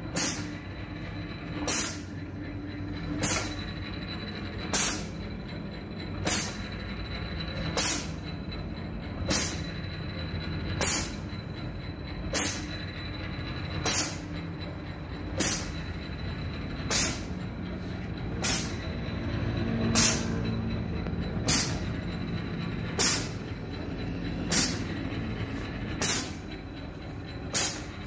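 Automatic wooden broom-stick threading machine running: a steady motor hum with a short, sharp hiss of pneumatic air exhaust about every one and a half seconds as its air cylinders cycle, each hiss marking one cycle of the machine.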